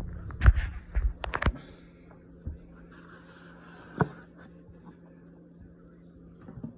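A quick run of sharp clicks and knocks, then a single knock about four seconds in, over a faint steady hum.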